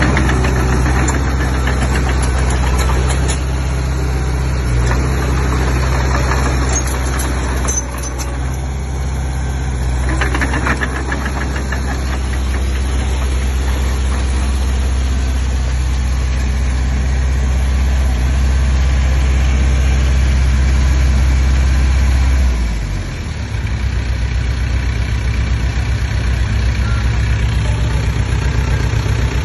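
Komatsu D20P bulldozer's diesel engine running steadily at working speed, then dropping in pitch about 22 seconds in and settling to a lower, steady speed.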